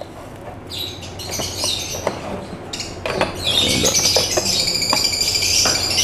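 A flock of caged lovebirds chirping and chattering, much louder from about three seconds in. Light clicks of a plastic spoon and seed dropping into a plastic bowl are heard along with it.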